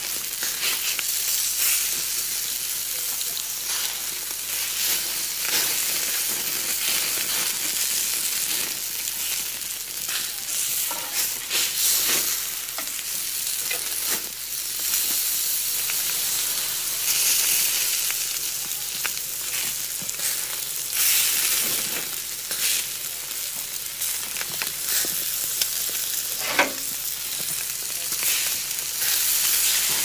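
Food frying: a steady sizzling hiss with frequent small crackles and pops.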